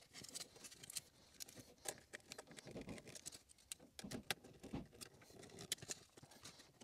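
Faint, irregular clicks and scrapes of a small screwdriver and a wire being worked into a terminal screw on a plastic two-wire smoke and CO detector base.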